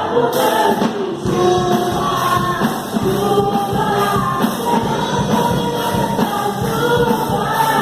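A Brazilian gospel worship song plays, with singing and a choir over instrumental backing.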